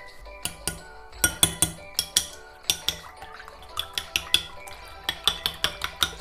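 Metal spoon beating eggs in a glass bowl: quick, irregular clinks of spoon against glass, several a second, over steady background music.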